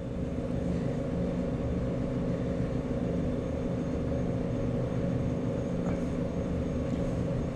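Steady low mechanical hum with several held tones, unchanging throughout.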